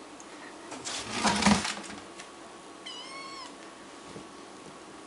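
A ginger tabby kitten gives one short, high meow about three seconds in, rising then falling in pitch. About a second in, a louder rustling scuff lasts about half a second.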